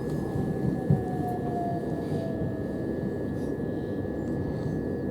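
Interior running noise of a Southern Class 377 electric multiple unit: a steady rumble with a constant high tone. Over the first few seconds a faint whine falls in pitch as the train slows on its approach.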